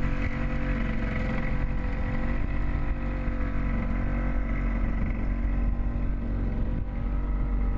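A small sailboat's auxiliary engine running steadily under way, an even drone that does not change.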